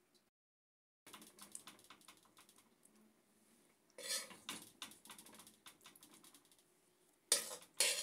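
A kitchen utensil clicking and scraping against dishes, starting about a second in, with a run of small taps and louder clatters about four seconds in and twice near the end.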